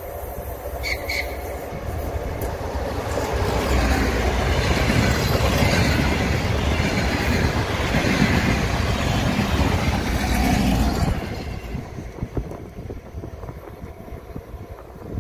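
A DR1AM diesel multiple unit passing close by at speed: its engine and wheel noise builds and stays loud for several seconds as the railcars go past, then drops sharply about eleven seconds in to a quieter, steady rumble.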